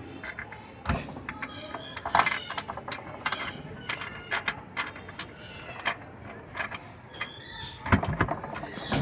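Irregular metallic clinks and clatter of hand tools and bolts as the two 13 mm mounting bolts of a washing machine motor are fitted, with a denser run of knocks near the end.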